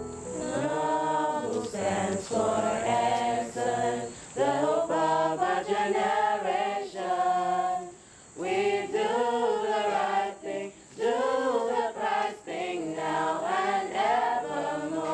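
A small choir of teenage students singing unaccompanied in short phrases with brief breaks between them. A steady high whine sits behind the voices.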